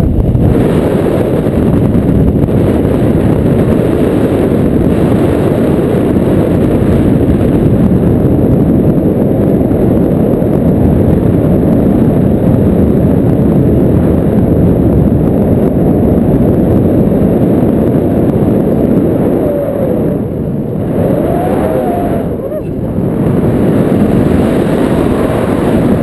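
Loud, steady wind noise buffeting an action camera's microphone in the airflow of a paraglider in flight, easing slightly twice near the end.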